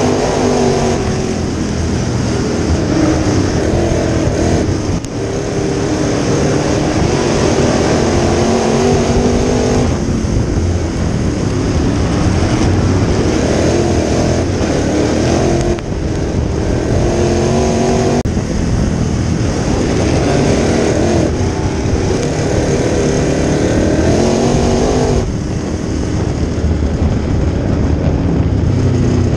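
Crate late model's V8 engine heard from inside the car at racing speed. It repeatedly winds up in pitch and then drops sharply when the throttle is lifted, about every four to five seconds, as the car laps the oval.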